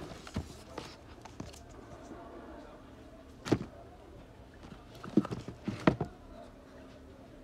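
Slippers and sandals being picked up and shifted on a stack by hand: scattered knocks and rustles of rubber and plastic, with a sharp knock about three and a half seconds in and a cluster of knocks around five to six seconds.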